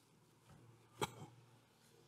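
Quiet room tone with a faint low hum and one short, sharp click about a second in.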